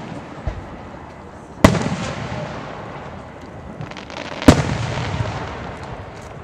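Aerial firework shells bursting: two loud booms, about a second and a half and four and a half seconds in, each followed by a rumbling echo that dies away over a second or more, with a fainter low thump about half a second in.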